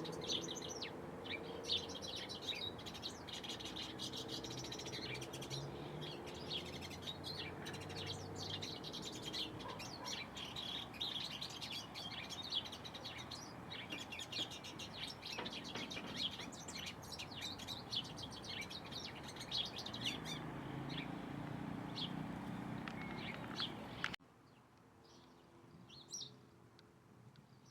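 Many small birds chirping together, a dense overlapping chatter of short high calls. About three-quarters of the way through it cuts off abruptly to a much quieter background with only a few scattered chirps.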